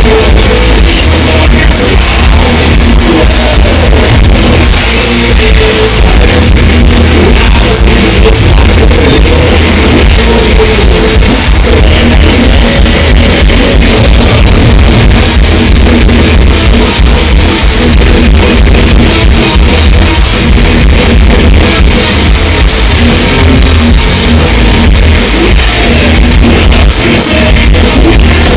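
Thrash metal band playing live at full volume: distorted electric guitars, bass and fast drums, heard in a loud, unbroken audience recording.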